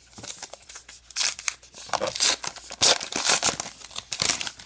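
The wrapper of a 2018 Topps Allen & Ginter baseball card pack being torn open and crinkled by hand: a run of sharp crackling rips and rustles, loudest in the middle.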